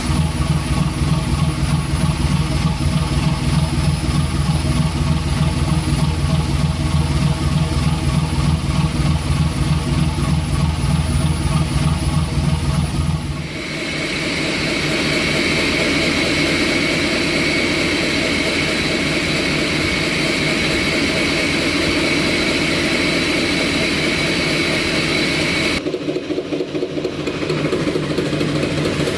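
Large old engines running, likely vintage diesels: a deep, steady, pulsing rumble for about the first half, then an abrupt cut to a different engine with a steady high-pitched whine over its running, which changes briefly again near the end.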